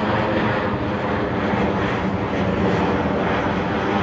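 Airplane flying over, its engines making a steady, continuous roar.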